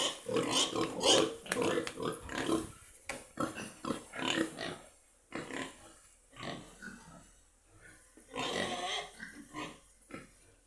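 Pigs grunting: a quick run of short calls over the first five seconds or so, then scattered grunts, with another brief cluster near the end.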